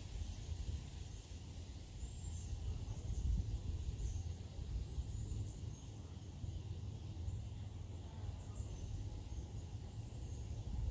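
Outdoor field ambience: a steady low rumble with short, high bird chirps scattered throughout.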